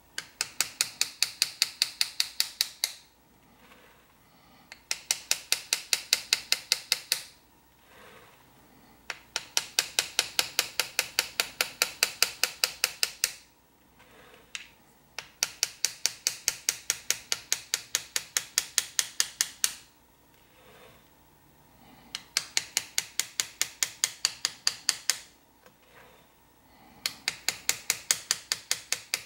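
Engraver's hammer tapping a hand chisel as it cuts scrollwork into metal: quick, even taps, about nine a second, in runs of three to four seconds broken by short pauses.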